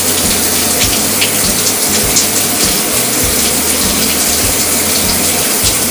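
Shower running steadily, water spraying and splashing into a bathtub.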